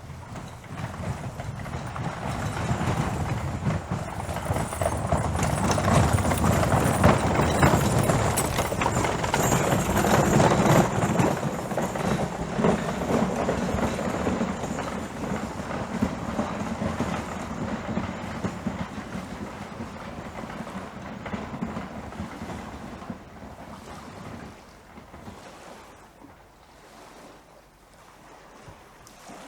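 Horses' hooves beating in a dense, continuous patter. It grows louder over the first several seconds, is loudest a quarter to a third of the way in, then slowly fades away.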